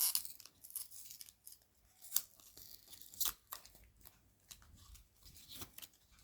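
A blind-box packet being opened by hand: cutting and tearing of the wrapping with crinkling, a loud rip at the start, then scattered short clicks and rustles.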